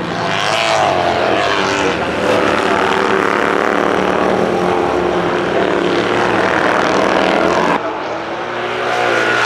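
Classic racing sidecar outfits' engines running hard at speed, their pitch rising and falling as the machines rev and pass. About eight seconds in the sound drops abruptly, then the engine noise builds again.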